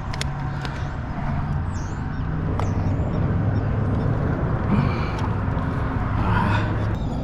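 A steady low engine-like rumble with a few faint clicks.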